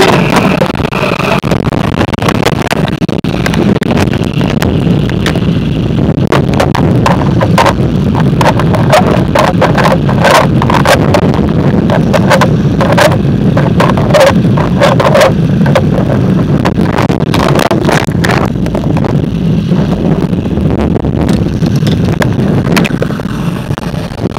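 Steady low rumble heard underwater in a river, with many sharp clicks of stones and gravel knocking together from about six seconds in until near the end.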